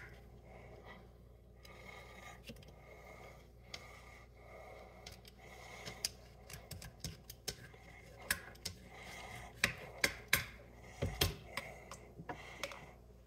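A handheld vegetable peeler scraping the skin off a piece of ginger root over a cutting board: faint scrapes at first, then a run of short sharp clicks and scrapes in the second half.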